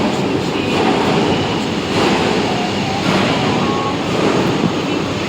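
Loud, steady rumbling noise from a construction site, with machinery running.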